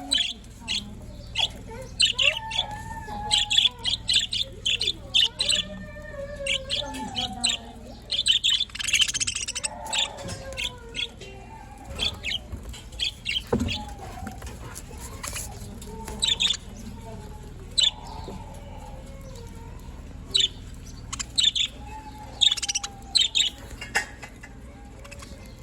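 Budgerigars chirping and warbling: rapid runs of short, high chirps over lower, wavering chatter.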